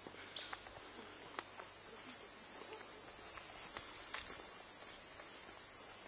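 A steady, high-pitched drone of tropical forest insects, swelling louder over the first two seconds and then holding. A few faint clicks are heard over it.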